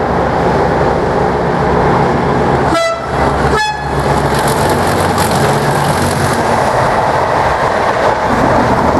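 Class 37 diesel locomotive's English Electric engine running loud under power as it passes, hauling a train. About three seconds in, its two-tone horn sounds two short notes, a lower one then a higher one.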